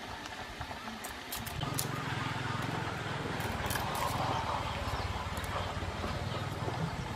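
Light clicks and taps of a knife blade on garlic cloves as they are peeled by hand, over a low steady hum that sets in about a second and a half in.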